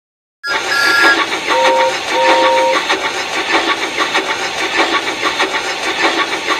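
Steam locomotive sound effect: steady rapid chuffing with a short high whistle, then two lower whistle toots, the second longer.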